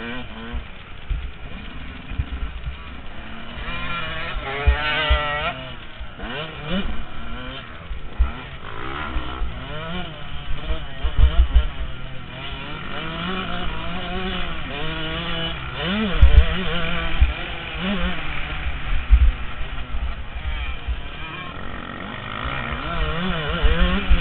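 Yamaha YZ125 single-cylinder two-stroke motocross engine revving up and falling back over and over as it is ridden around a dirt track, heard from a helmet camera. Low wind buffeting and thumps run underneath.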